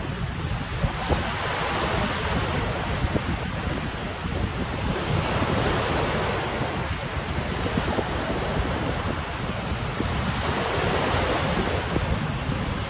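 Surf breaking and washing ashore in repeated surges, with strong wind buffeting the microphone.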